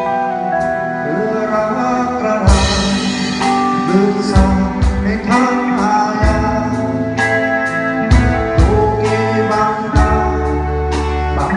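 A band playing a song: guitar, bass and a steady drum beat, with a voice singing over them.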